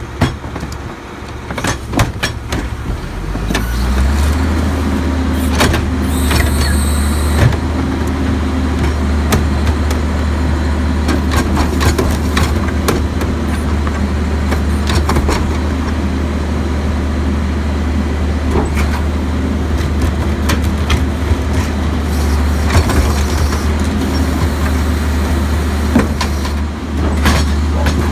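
Diesel engine of a Crane Carrier garbage truck with a Leach rear-loader body. It steps up to a steady, raised, loud run about four seconds in and holds there while the hydraulic cart tipper and packer work, then drops back near the end. Bangs and clanks of carts and metal come throughout, with a brief hiss about six seconds in.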